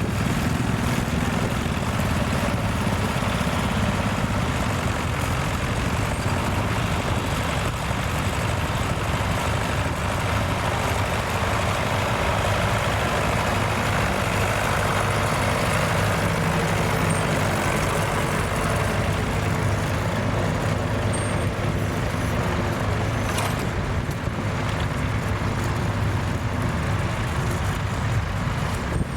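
Tractor engine running steadily under load, with a constant low drone throughout.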